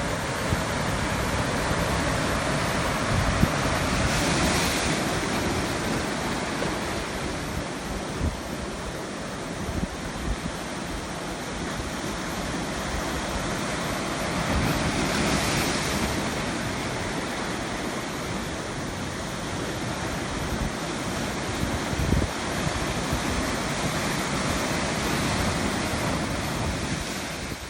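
Atlantic ocean surf: waves breaking and washing up the shore in a continuous roar, with two bigger breakers swelling up about four and fifteen seconds in.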